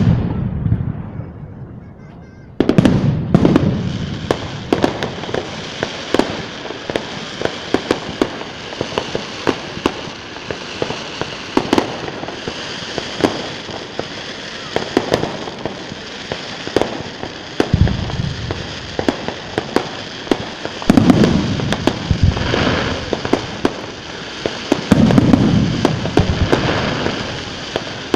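Fireworks display: dense rapid crackling and popping of bursting shells. A heavy burst comes in suddenly about two and a half seconds in, and several more loud booms follow later.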